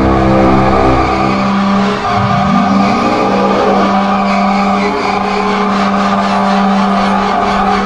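Loud, ominous horror-film drone: a steady low tone under layered higher tones, with a swooping dip and rise in pitch about two seconds in and again near the end.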